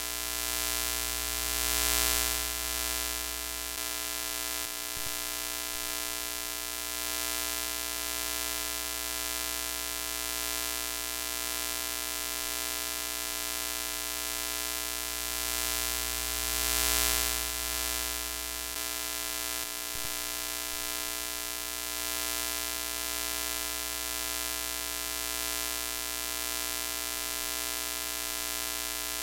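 Broken-TV glitch sound effect: a steady electrical hum with many overtones under a layer of static hiss. It swells louder about two seconds in and again a little past halfway, with faint crackles around five and twenty seconds.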